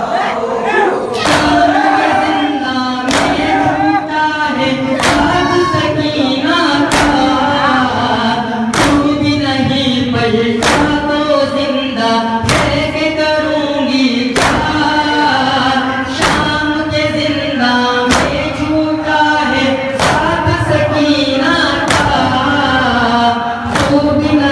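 A group of men chanting a noha, a Shia lament, in chorus. A sharp unison slap of hands on chests (matam) lands about every two seconds, keeping the beat.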